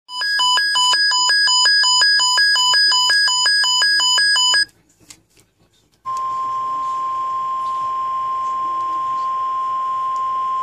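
Emergency alert broadcast tones: an electronic attention tone alternating between two pitches about three times a second for about four and a half seconds, then after a short pause the steady 1050 Hz NOAA Weather Radio warning alarm tone, which signals that a voice alert message follows.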